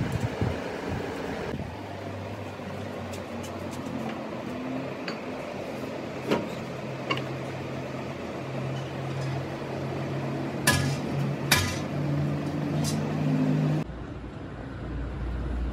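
Metal steering gear box parts clinking as they are handled on a workbench: a handful of sharp clinks, the loudest two close together a little past the middle, over a steady low hum.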